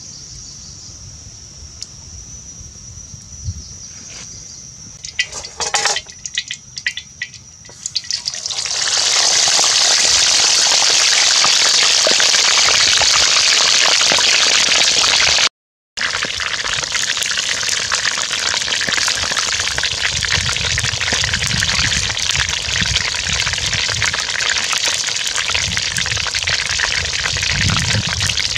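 Whole chicken frying in hot oil in a wok over a wood fire: a loud, steady sizzle that comes in suddenly about eight seconds in and cuts out for a moment around halfway. Before it there are a few scattered crackles over a faint, steady insect drone.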